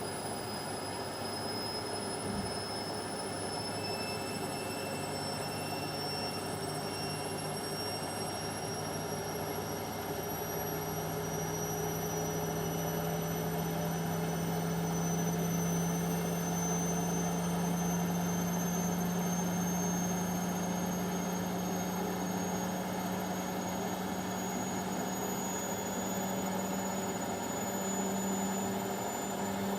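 Indesit washing machine on its spin cycle, the drum spinning fast. A steady rumble runs under a high motor whine that climbs slowly in pitch as the spin speeds up.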